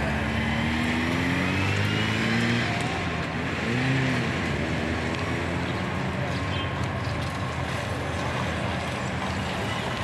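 Diesel engines of heavy earthmoving machinery, a backhoe loader and a tracked excavator clearing rubble, running and revving. The engine pitch rises and falls, with a short rise and fall about four seconds in, over a steady rush of noise.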